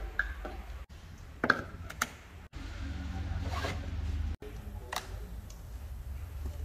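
Handling noises from plastic oil-change gear, a funnel and an oil bottle: a few sharp knocks and clicks, the loudest about a second and a half in, over a low steady hum. The sound breaks off abruptly several times.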